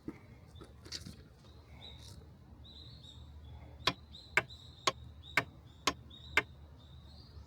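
Footsteps on a hard surface at walking pace, about two a second. Six sharp, loud steps come in the second half. A small bird chirps repeatedly behind them.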